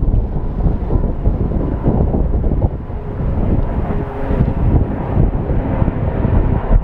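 Wind buffeting the microphone: a rough, fluctuating low rumble.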